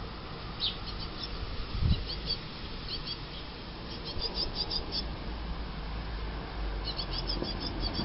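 Great tits calling in quick runs of short, high chirps, repeated on and off, with a single low thump about two seconds in.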